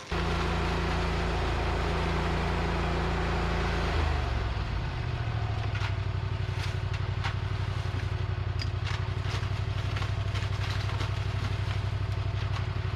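An engine running steadily. About four seconds in it drops to a lower, pulsing note, and light clicks and knocks sound over it from about six seconds in.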